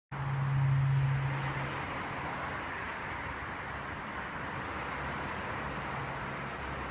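A steady low-pitched hum, loud for the first second and a half and then fading away, over a steady rushing background of urban and rail-station noise; the hum is the unexplained 'strange sound' the recordist heard.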